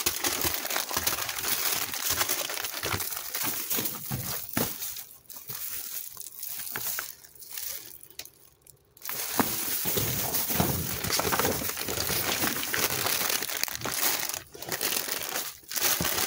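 Plastic trash bags and chip bags crinkling and rustling as they are handled and shifted by hand, with irregular crackles. It goes much quieter for a couple of seconds in the middle, then resumes.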